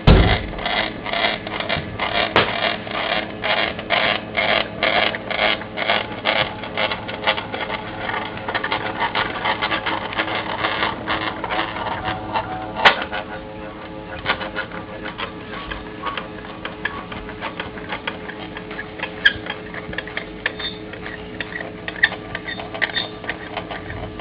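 Stepper motor turning a car jack's threaded screw as a CNC linear stage, running with a rhythmic mechanical pulsing a few times a second. After a sharp click about halfway through, it settles into a steadier, quieter hum with a steady tone.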